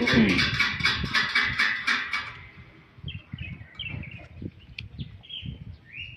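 Rapid, even clicking, about six strokes a second, that stops abruptly after about two seconds, then birds chirping: a string of short high calls, some rising and some falling, with one longer rising call near the end.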